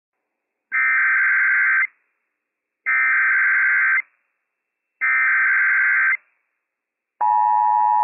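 Emergency Alert System SAME header: three bursts of warbling digital data tones, each just over a second long with about a second between them, the coded signal that sets off EAS and weather-radio receivers for a Required Monthly Test. About seven seconds in, the steady EAS attention tone begins.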